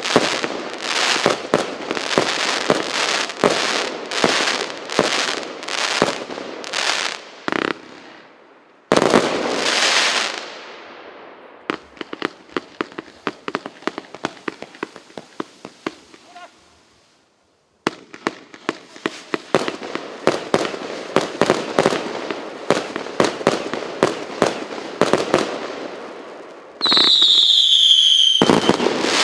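Р8284 'Ярче солнца' 136-shot firework cake firing: a rapid string of shots and bangs with crackling tails, a quieter crackling stretch and a brief break near the middle, then more quick shots. Near the end a whistling shot sounds with a falling pitch, followed by a bang.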